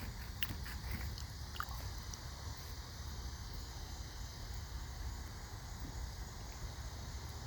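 Raccoon crunching hard food: a few faint crisp crunches in the first two seconds. Behind it are a steady high insect hiss and a low rumble.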